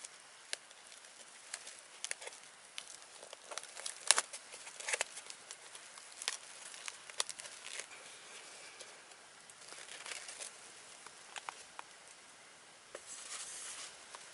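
Crinkling and clicking of a plastic food pack being handled and opened, with irregular sharp crackles and a longer rustle near the end.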